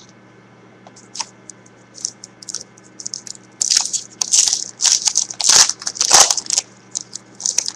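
A foil trading-card pack being torn open by hand: irregular crinkling and tearing of the wrapper, starting about a second in and busiest in the middle few seconds.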